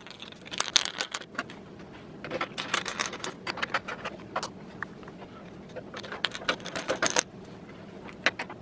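Hands handling a steel PC tower case: scattered sharp clicks and light metallic rattles from the expansion-slot brackets and side panel, in several short clusters.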